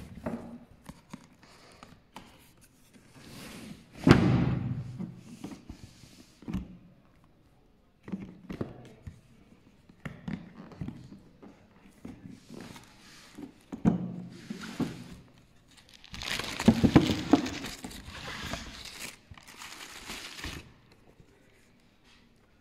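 Cardboard shoebox being handled and opened, with paper crinkling and rustling in irregular bursts and a few dull knocks. The loudest moments come about four seconds in, with a sharp knock, and in a long crinkly stretch around sixteen to nineteen seconds in.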